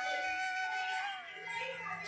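Background instrumental music: a flute melody holding a long note, then sliding down into the next one about a second in.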